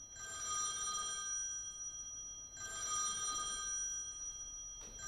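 Telephone ringing, three rings about two and a half seconds apart, each a steady high ring that swells and fades.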